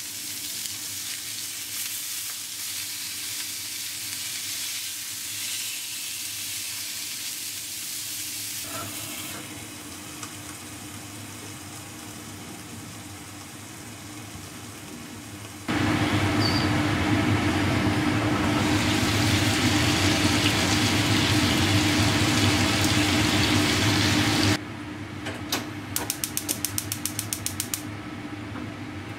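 Hamburg steaks sizzling in an iron frying pan, a steady frying hiss that turns quieter for a while and then much louder in the second half. The loud sizzle cuts off suddenly near the end, and a quick run of regular clicks follows.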